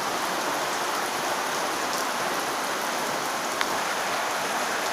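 Heavy rain falling steadily in a storm, an even hiss with a single sharper drop tick about three and a half seconds in.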